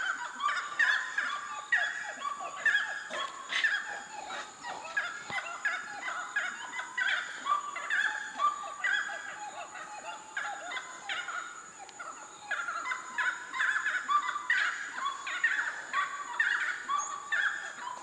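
Gray-cowled wood-rails calling in a rhythmic chorus of loud calls repeated about once a second, each pairing a lower note with a higher one.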